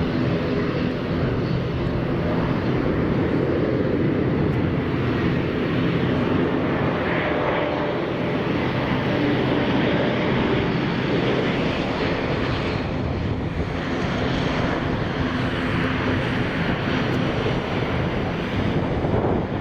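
Airliner engines running with a loud, steady roar, over a set of steady low engine tones that fade out about halfway through.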